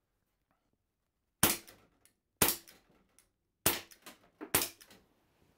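Four sharp shots from a revolver-style air pistol, about a second apart, with a little rattle after each.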